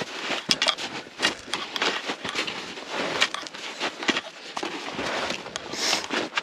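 Hikers' footsteps on the trail: a quick, irregular run of short steps, several to the second.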